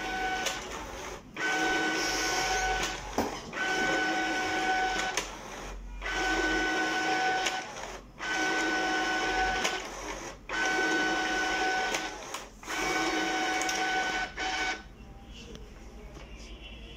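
Epson DS-1630 scanner's automatic document feeder pulling pages through one after another: about six feed passes of roughly two seconds each, a steady motor whine with brief pauses between sheets, stopping about 15 seconds in. The sheets feed without stalling, the test of the newly replaced feed roller that had been making pages skip and jam.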